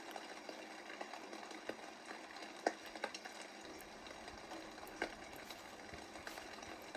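Faint steady patter of light rain, with a few scattered sharper taps.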